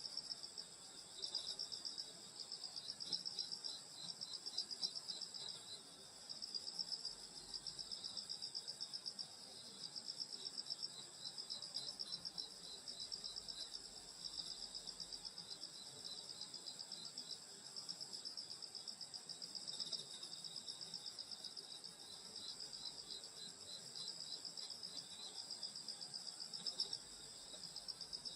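Summer chorus of grass insects, crickets among them, chirping without pause: a fast pulsing trill with a steadier high ringing above it.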